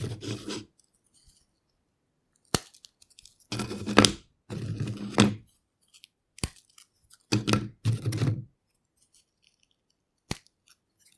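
Cheese crisps being snapped and crumbled by hand: four crackling, crunchy breaks of about a second each, with three single sharp snaps between them, separated by short pauses.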